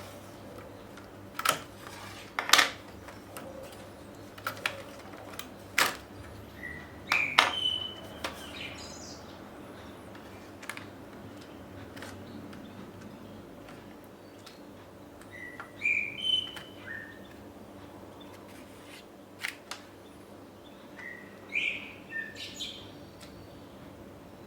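A bird chirping in three short bursts of high calls, over scattered sharp clicks and taps and a low steady hum.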